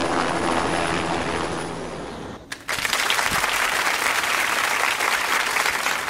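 Helicopter engine and rotor noise fading over the first two seconds, then, after an abrupt cut, a group applauding steadily.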